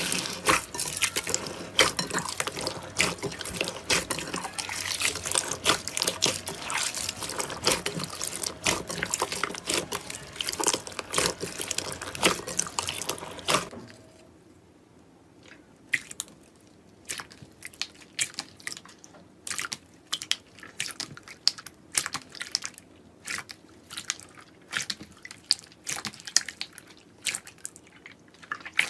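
Hands squishing and working slime: dense wet crackling and popping for about the first half, then, after a sudden change, quieter and sparser sticky clicks and pops.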